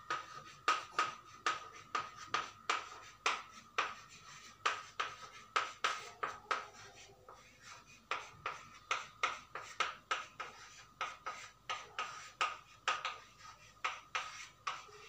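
Chalk writing on a chalkboard: a quick run of sharp taps and short scratches as letters are written, about two or three a second, with a brief lull around the middle.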